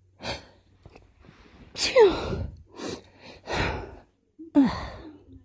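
A woman's stifled sneezes: a sharp burst about two seconds in and another near the end, each with a quick falling voiced squeak, with breathy gasps and sighs between them.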